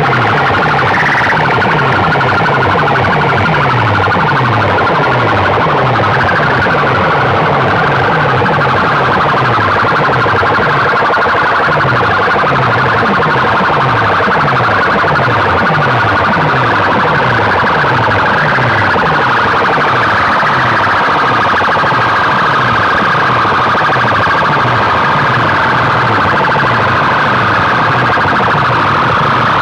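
Loud siren-like effect track from a sound-system competition, blasted through large loudspeaker boxes. A falling bass sweep repeats about once or twice a second under a steady, noisy siren layer.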